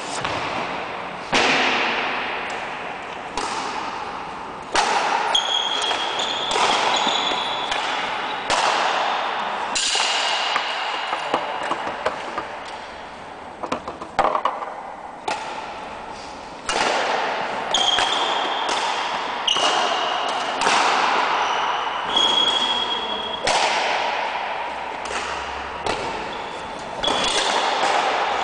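Badminton rally: rackets hitting a shuttlecock about once every second or so, each sharp hit echoing around a large gym hall. Short high squeaks of sneakers on the polished floor come now and then.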